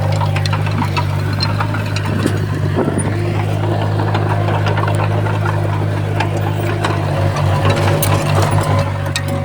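Small crawler bulldozer's diesel engine running steadily, with frequent clanks and cracks from the tracks and the work. Near the end the engine note pulses unevenly for a second or so.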